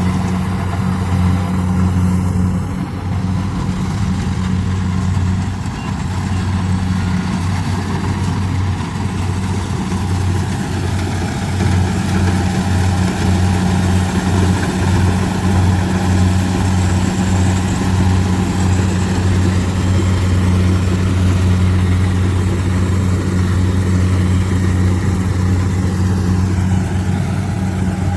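Kubota combine harvester's diesel engine running steadily while harvesting rice, a constant low hum.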